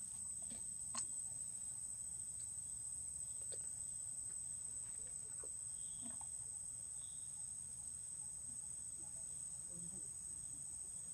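Steady high-pitched insect drone, with faint scattered rustles and clicks, the sharpest about a second in.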